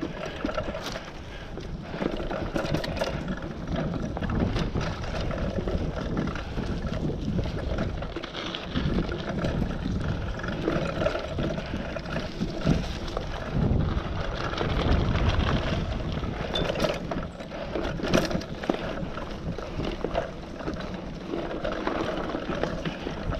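Mountain bike rolling along a dirt singletrack: steady tyre and riding noise, with scattered knocks and rattles as it goes over bumps.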